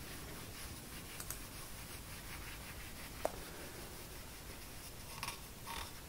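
Cloth rag rubbing paste wax into the wooden body of a jack plane: faint rubbing with a few light ticks, a sharp click about three seconds in, and two short, louder swipes near the end.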